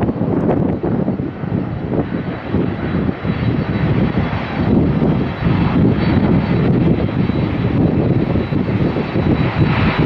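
Jet engines of a twin-engine airliner, a Boeing 767, running at climb power as it climbs away after takeoff: a loud, steady rumble that rises and falls unevenly, mixed with gusty wind buffeting the microphone.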